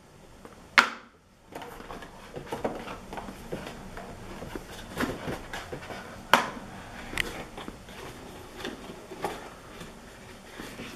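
Cardboard tablet box being handled by hand. A sharp tap comes about a second in, then steady rustling and scraping with scattered clicks and knocks as the box is closed and set down on the desk.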